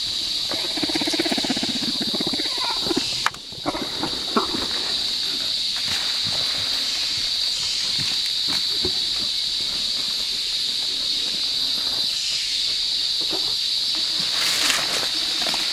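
Steady high-pitched drone of a rainforest insect chorus, with a rapid low rattling sound in the first couple of seconds and a few scattered snaps and rustles of twigs and leaves.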